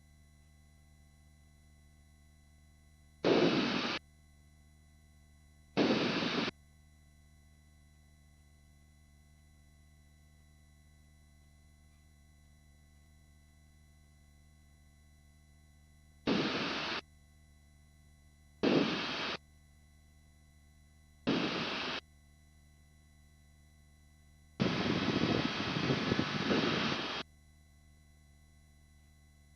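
Helicopter headset intercom: a faint steady electronic hum with fixed tones, broken six times by bursts of noise that cut in and out abruptly, five of about half a second and a last one of about two and a half seconds near the end.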